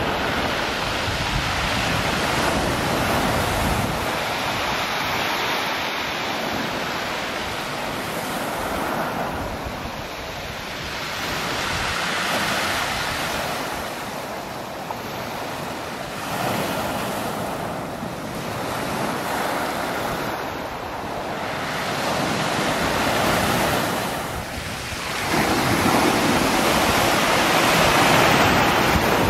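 Sea waves breaking and washing on a shingle beach, swelling and easing every few seconds, with wind rumbling on the microphone, most in the first few seconds.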